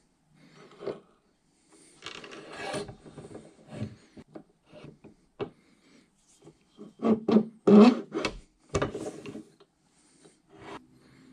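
Small arbor press pushing a bearing assembly onto a variable-speed disc pulley through a wooden block: irregular scraping and creaking of wood and metal, loudest about seven to nine seconds in.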